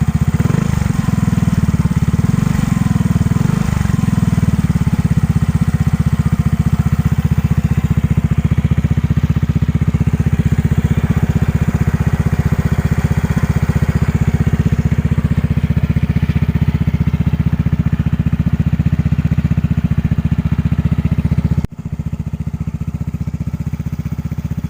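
Yamaha Mio i 125S scooter's single-cylinder engine running through a kalkal pipe, a stock muffler with its insides removed. It is blipped up and down a few times in the first few seconds, then runs steadily at idle. The level drops suddenly near the end.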